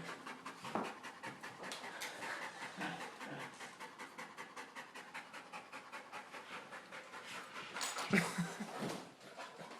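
Dog panting hard, winded from playing fetch: rapid, even breaths in and out through the open mouth. A louder, lower sound briefly breaks the rhythm a little after eight seconds in.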